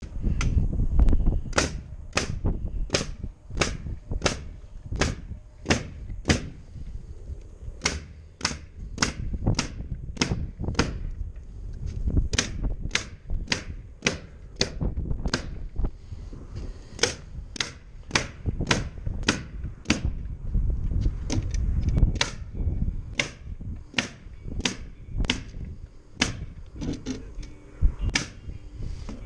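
Pneumatic nail gun firing over and over, roughly one to two shots a second with a short pause in the middle, driving nails through OSB roof sheathing into the trusses. A low rumble sits underneath.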